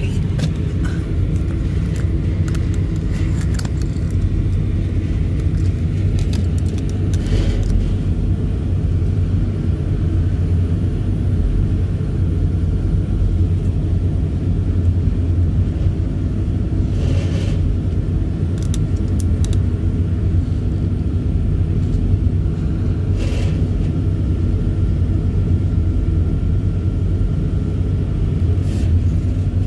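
Steady low engine rumble heard from inside a truck cab, running evenly at a constant level. A few brief soft noises stand out from it here and there.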